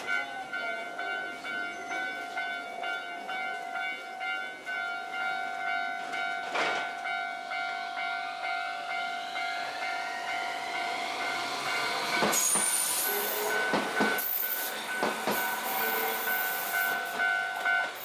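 Tokyu 300 series tram running on the Setagaya Line. Its motor whine climbs in pitch as it gathers speed, and from about two-thirds of the way in come sharp knocks from the wheels on the rail and high wheel squeal. Under it a steady electronic warning tone keeps ringing and cuts off just before the end.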